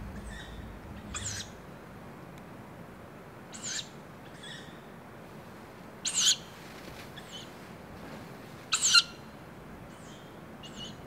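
A single bird singing short, high phrases every couple of seconds, with pauses between them; two phrases, a little past the middle and near the end, are louder than the rest.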